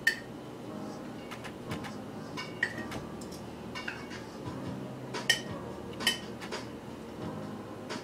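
Metal tongs clinking against a ceramic plate as asparagus spears and greens are set down on it: a string of sharp clinks with a short ring, the loudest right at the start and about five seconds in.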